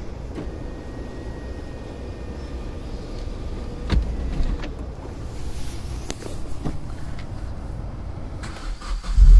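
A 2009 Hyundai Coupe heard from the driver's seat: a low steady hum with a few sharp clicks. Near the end the engine comes in suddenly and loudly.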